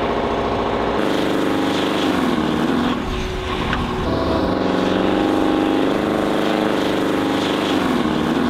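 Heavy diesel engine of an Oshkosh HET wrecker revving under load as the truck struggles for traction on a slick, snowy hill. The engine note dips about two seconds in, climbs and holds, then falls away near the end.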